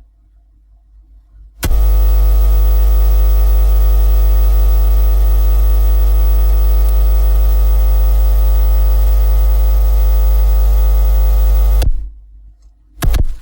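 Power-line interference picked up by a radio antenna: a loud, steady mains hum and buzz with many overtones. It switches on suddenly about a second and a half in and cuts off suddenly near the end.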